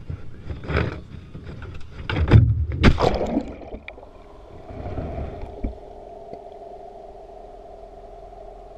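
Loud splashing and knocking as the camera goes into the water, strongest about two and three seconds in. Then the sound turns to a steady underwater hum with two held tones.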